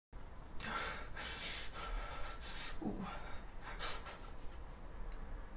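A man's heavy breathing: sharp hissing breaths and gasps about once a second, with a short falling vocal sound about three seconds in.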